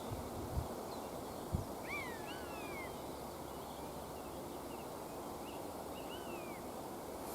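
Common buzzard giving several thin, down-slurred mewing calls over a steady background hiss of the woodland. The calls come as a cluster about two seconds in and again near six seconds, with a couple of dull low thumps early on.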